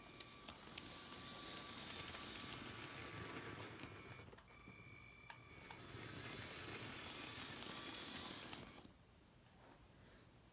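LEGO train rolling through a Brick Tracks R104 plastic switch, wheels running on the plastic rails with a rattle of small clicks over the joints and a thin steady whine. It dips briefly about four seconds in and fades out near nine seconds.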